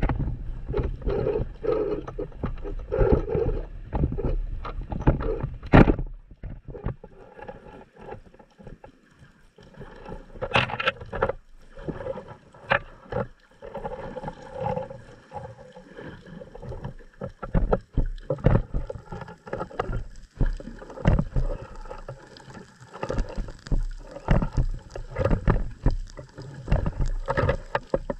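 Muffled water noise picked up by a camera in an underwater housing, with irregular knocks and thumps throughout and a low rumble.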